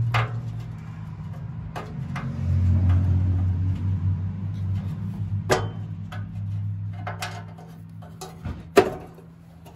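Back cover plate going onto a Cub Cadet 102 garden tractor: scattered sharp metal clicks and knocks as the plate and its bolts are worked into place, the sharpest one near the end, over a steady low hum.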